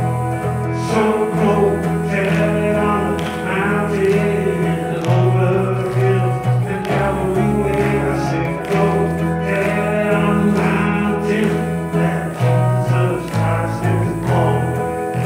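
Small worship band playing a gospel-style song: electric guitar, bass guitar and keyboard under a singing voice, with a sustained bass line.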